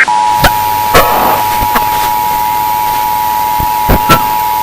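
Emergency Broadcast System two-tone attention signal: two steady tones just under 1 kHz sounding together over a steady hiss of broadcast static, broken by a few sharp clicks and crackles.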